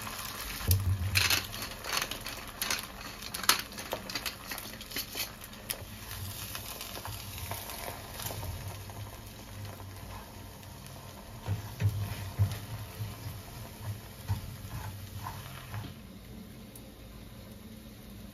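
Egg whites sizzling in a nonstick frying pan while a wooden spatula taps and scrapes the pan as the whites are stirred, with a quick run of clicks and knocks in the first few seconds. The sizzle drops away near the end.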